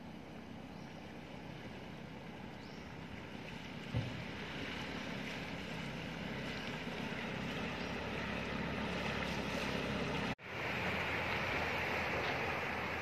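A motorbike and then a pickup truck driving through shallow floodwater on the bridge: engine and water noise mixed with wind on the microphone. The sound slowly builds as the motorbike comes closer, and after a cut about ten seconds in it is louder.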